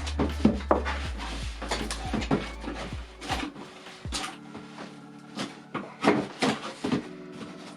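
A large knife cutting open a cardboard shipping box: irregular scrapes, rips and knocks as the blade and box are worked, over quiet background music.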